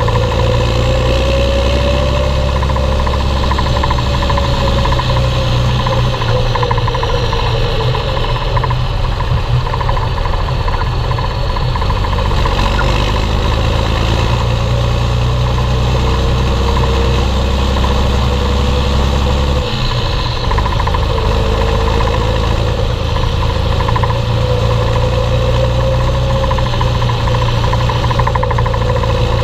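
Belarus 1221.3 tractor's six-cylinder diesel engine running steadily while hauling a heavy load, with a whine that wavers slightly in pitch over it. The low drone changes briefly about twenty seconds in.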